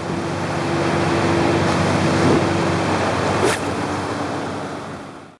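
Steady rushing wind and surf noise with a faint low steady hum, and one brief sharp sound about three and a half seconds in, around the release of a surf-rod cast.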